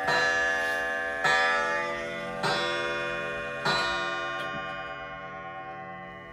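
A Waltham Stamford 31-day wall clock striking on its coil gong: four hammer strokes about a second and a quarter apart, each ringing on into the next. The last stroke dies away slowly.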